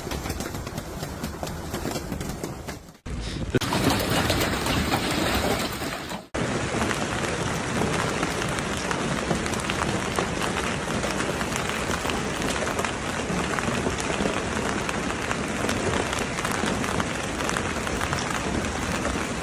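Hailstorm: hailstones and heavy rain pelting hard surfaces in a dense, continuous clatter of impacts. The sound cuts off abruptly twice, about three and six seconds in, and resumes at once.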